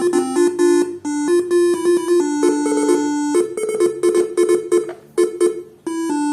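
Faniatech R3 Basuri telolet bus-horn module playing one of its preset melodies: a quick run of steady, buzzy electronic notes stepping up and down in pitch, with a brief gap shortly before the end.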